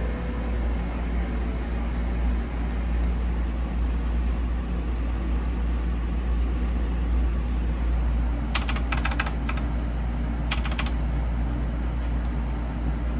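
Two short runs of rapid key clicks about two-thirds of the way through, with a single click near the end, over a steady rushing background with a deep low rumble.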